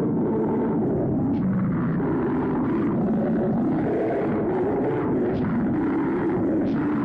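Loud, steady rumbling roar that starts abruptly and holds at an even level, an asteroid-impact sound effect in an animated emergency-alert scenario.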